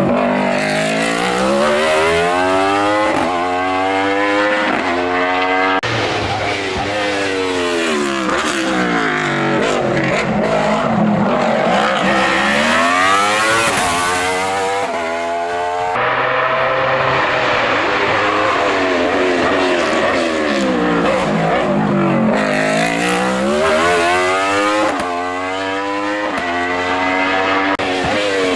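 Hill-climb race car engine revving hard, its pitch climbing and then dropping again and again through gear changes and braking for bends. The sound breaks off abruptly about six and sixteen seconds in.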